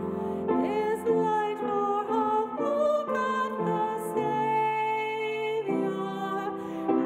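A woman singing a slow hymn solo over steady instrumental accompaniment, holding each note for about half a second to a second, some with a slight vibrato.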